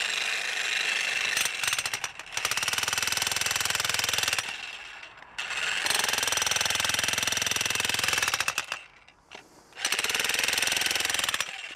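VEVOR 2200 W electric demolition jackhammer with a spade attachment hammering into hard clay soil. It runs in bursts of a few seconds of rapid blows and stops briefly three times before starting again.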